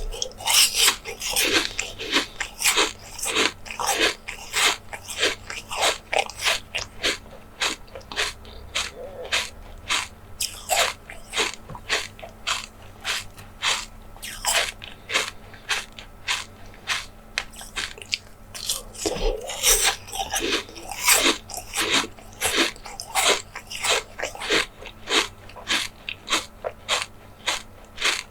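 Close-miked eating sounds: a steady run of sharp, crisp crunches and bites as food is chewed, about two or three a second.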